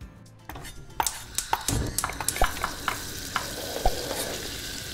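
Crackling, sizzling noise with many scattered sharp clicks, starting about a second in: a sound effect under an animated production-logo sting.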